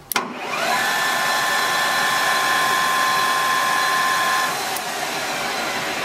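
BMT 1440 ZLT centre lathe's spindle drive switched on with a click, winding up with a rising whine and then running steady. About four and a half seconds in the whine cuts off, a click follows, and the chuck runs on with a steady rushing noise.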